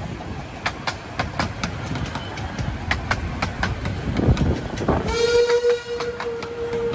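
Coaches of a 15-inch-gauge miniature steam railway rolling past, with wheels clicking over the rail joints in an uneven run of sharp clicks. About five seconds in, the steam locomotive's whistle starts a single steady note and holds it.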